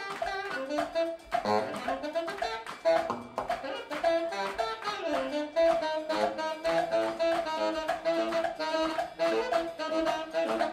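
Funky Latin brass-band music: a baritone saxophone plays quick riffs over the band with a steady beat.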